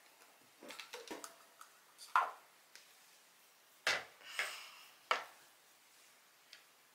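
Scattered clinks and knocks of slime-making containers and utensils being handled, the loudest about two, four and five seconds in, with a short scrape just after the four-second knock.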